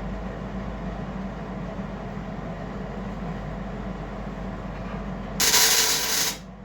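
Steady workshop hum, then a loud hiss near the end that lasts about a second and cuts off.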